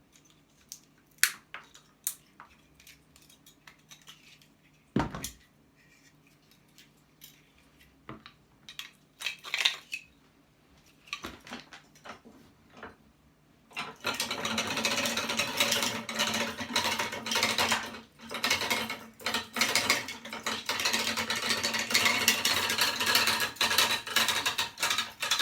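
Metal clinking and scraping as hand tools work copper out of a scrapped machine. Scattered clinks and knocks give way, a little past halfway, to dense continuous scraping and rattling.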